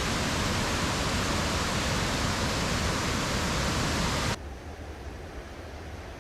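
Rushing water of a rain-swollen waterfall on the Falling Water River: a loud, steady rush that drops suddenly to a much quieter, duller rush about four seconds in.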